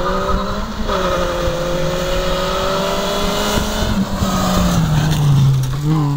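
A Ford Fiesta rally car at full throttle on a gravel road. The engine note dips briefly about a second in, then climbs steadily, and falls as the car passes close by at its loudest near the end, with the hiss of tyres on gravel.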